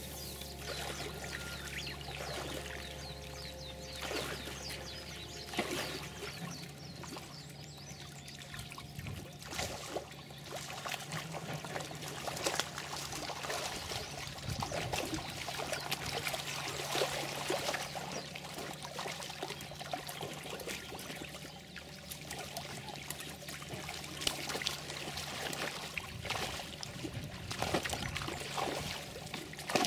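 Irregular water splashing, sloshing and trickling as koi are handled by hand in a plastic tub of water. A low steady hum stops about six seconds in.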